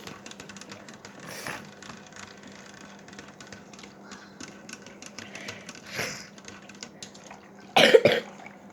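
A person with a cold coughing: a loud cough near the end, with two fainter ones earlier. Under it, light quick clicking of a whisk against a mixing bowl.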